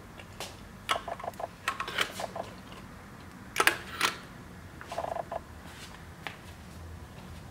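Hard plastic lure tubes clicking and clattering against a wall display rack as a lure in its tube is hung back on its hook. It comes as a string of short, sharp clicks, with the two loudest close together a little past halfway.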